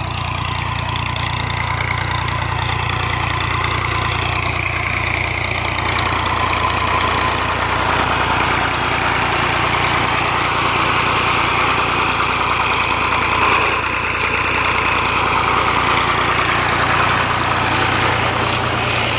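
Ghazi farm tractor's diesel engine idling steadily close by, getting a little louder over the first several seconds.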